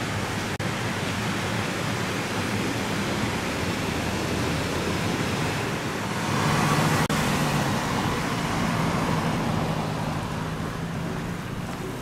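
Road traffic noise: a steady rush of passing vehicles with a low engine hum underneath, loudest when a vehicle goes by about six to seven seconds in.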